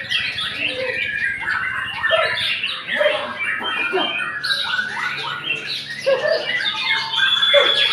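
White-rumped shama (murai batu) singing a fast, varied song of short notes and quick pitch glides, with other birds calling over it and no pause.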